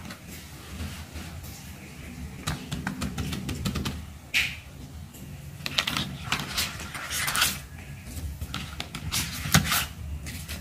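Sticker packs in clear plastic sleeves being handled in a cardboard box: irregular crinkling rustles and light taps and scrapes as fingers slide and lift the packs, over a low steady background hum.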